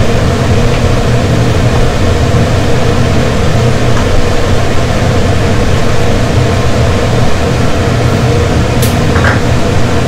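Steady, loud mechanical hum over a pot of soup at a rolling boil, stirred with a wooden spatula. A single sharp tap near the end.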